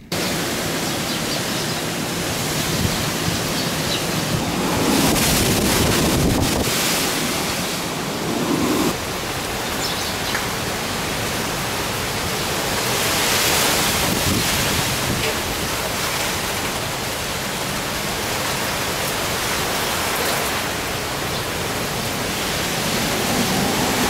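Typhoon wind and heavy rain making a steady, dense rush, with gusts swelling about a quarter of the way in and again just past halfway.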